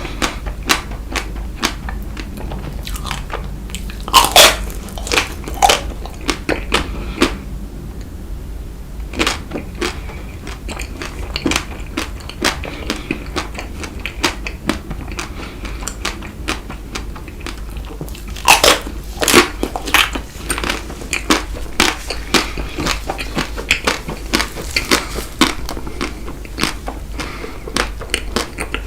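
Close-miked eating of frozen Tico chocolate ice cream: biting and chewing with crunches and sharp mouth clicks. The loudest bites come about four seconds in and again around eighteen to nineteen seconds.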